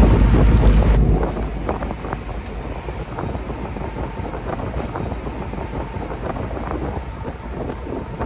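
Outboard motorboat under way at speed: wind buffets the microphone, heaviest in the first second. Underneath, water rushes and splashes past the hull over the steady run of the outboard engine.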